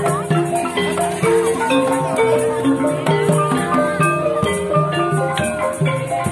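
Live Javanese gamelan playing without a singer: struck metallophone notes ringing in a running melody over kendang drum strokes, as accompaniment for an ebeg dance.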